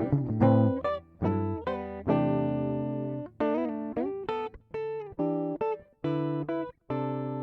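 Background music: a guitar playing single plucked notes and short phrases, some notes left to ring and fade.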